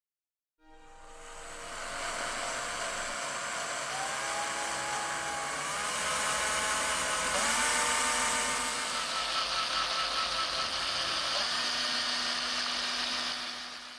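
A small motor running at high speed with a whine, fading in over the first couple of seconds. Its pitch steps up about four seconds in and again about seven seconds in, then drops about eleven seconds in, before it fades out at the end.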